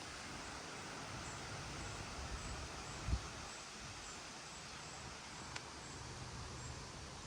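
Gusty wind blowing through trees, leaves rustling steadily, with a brief low buffet of wind on the microphone about three seconds in. Faint high chirps repeat in the background.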